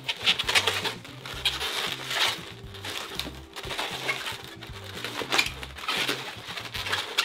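Latex 260 twisting balloons squeaking and rubbing against each other in irregular bursts as they are twisted and worked into a pinch twist, over background music with a repeating bass line.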